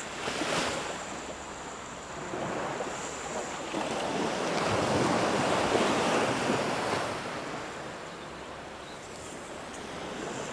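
Sea waves washing onto a beach, one surge swelling and fading about halfway through, with some wind on the microphone.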